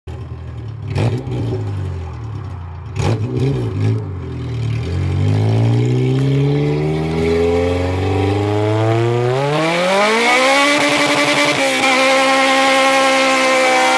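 Car engine accelerating hard. Its pitch climbs steadily for several seconds, then holds high and steady, after two sharp knocks in the first few seconds.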